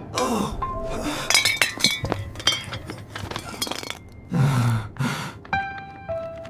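A quick run of light clinks and knocks over background music; about four and a half seconds in, a short whooshing burst, then a few short stepped notes of music.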